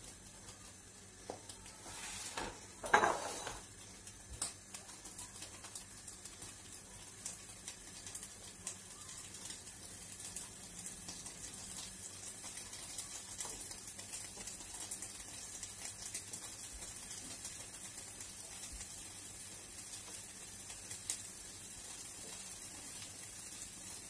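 Chopped green peppers frying in oil in a pot, a steady sizzle dotted with small crackles. A single louder knock comes about three seconds in.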